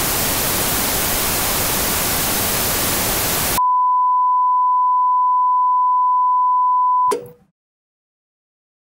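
Television static hiss, cut off sharply about three and a half seconds in by a steady, high-pitched test-tone beep, the reference tone that goes with colour bars. The tone stops abruptly about three and a half seconds later.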